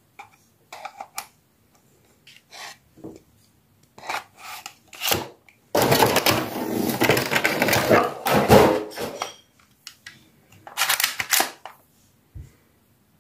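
Clicks, knocks and metallic rattles from handling a Glock-style airsoft pistol. About six seconds in comes a dense, noisy clatter lasting three to four seconds, with a shorter burst near the end.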